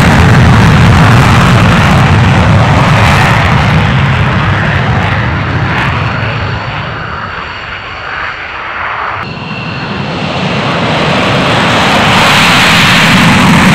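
F-15C Eagles taking off in full afterburner, their twin Pratt & Whitney F100 turbofans very loud. The first jet's noise fades steadily as it rolls away, the sound shifts abruptly about nine seconds in, and a second jet comes in at full loudness near the end.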